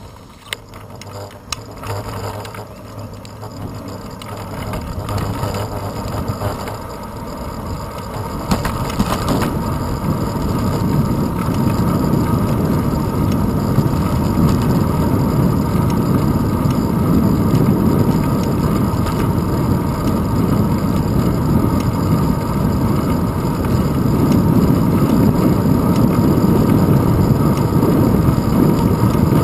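Wind buffeting and road rumble on a bicycle's handlebar-mounted action-camera microphone. The noise builds over the first ten seconds or so as the bike picks up speed from a stop, then holds steady. There are a few sharp clicks near the start.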